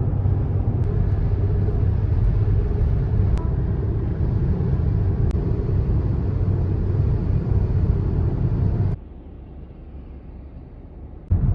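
Steady low road rumble inside a moving car on a rainy drive, with a few faint ticks. About nine seconds in it cuts abruptly to a much quieter hum, then returns about two seconds later.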